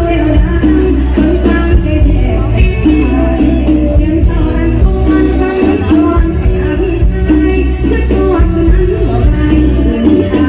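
Loud live mor lam band played through a PA: bass, drum kit and electric guitar keeping a steady dance beat, with a woman singing into a microphone over it.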